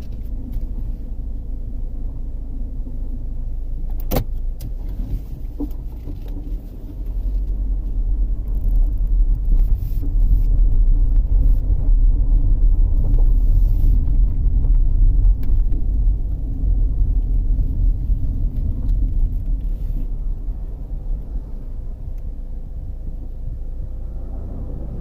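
Road and engine noise of a 2013 Chevrolet Equinox with the 2.4-litre four-cylinder being driven, heard from inside the cabin: a steady low rumble that grows louder about seven seconds in and eases off again after about sixteen seconds. A single sharp click about four seconds in.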